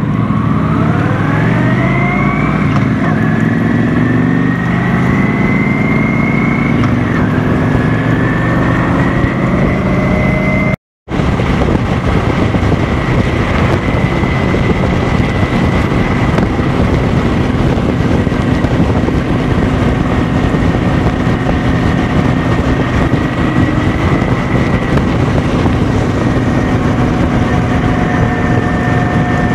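Cruiser motorcycle engine pulling away from a stop and accelerating, its pitch rising through the gears with shifts about three and seven seconds in, then running steadily at cruising speed over a constant rushing noise. The sound cuts out for a moment about eleven seconds in.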